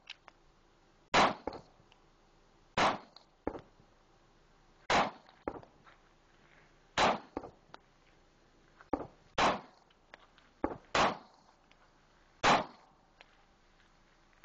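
Heckler & Koch P2000SK subcompact pistol fired seven times in slow, deliberate single shots, about one and a half to two and a half seconds apart.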